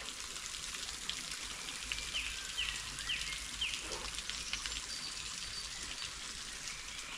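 A small waterfall trickling and splashing down, a steady hiss of falling water. A bird calls four short quick notes about two seconds in.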